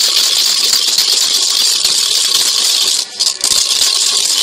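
Wooden dal churner (paruppu mathu) spun fast in a clay pot, beating eggs and sugar to dissolve the sugar. It makes a steady, dense rattling churn, with a brief break a little after three seconds.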